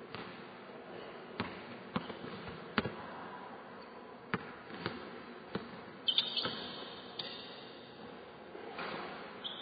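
A basketball bouncing on a hardwood gym floor as a player dribbles, with sharp single bounces roughly every half second to second, over a steady faint buzz. A short high squeak comes about six seconds in and again near the end.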